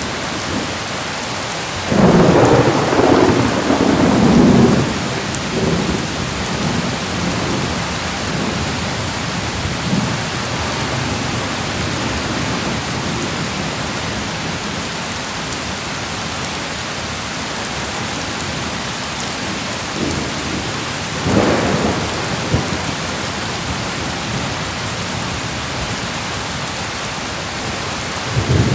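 Steady heavy rain falling, with thunder: a loud rolling clap about two seconds in, another shorter one near twenty-one seconds, and a third starting at the very end.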